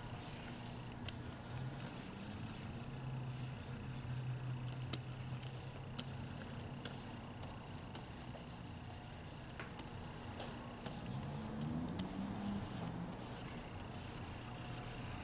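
Plastic stylus rubbing across a pen-display tablet's screen while drawing, faint, with a few sharp taps of the pen tip on the glass.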